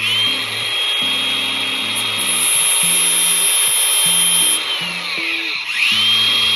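High-speed power tool grinding, a steady high-pitched whine that sags in pitch when pressed into the work, near the start and twice near the end, then winds back up. A simple low background music track plays underneath.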